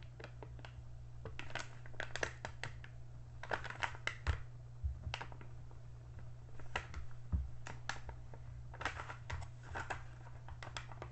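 Handling of a diamond painting canvas: scattered small clicks and crinkling rustles, some in quick clusters, over a steady low hum.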